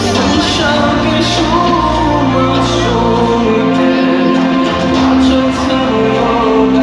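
Live concert music with singing, with shouts from the audience.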